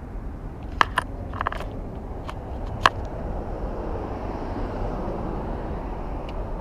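Steady low rumble of traffic on the road bridge overhead, growing louder about halfway through. A few sharp clicks and taps come in the first three seconds.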